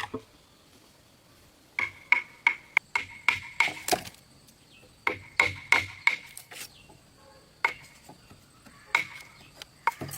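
Hammer blows on wood in quick runs of several strikes with short pauses between, each strike with a brief metallic ring.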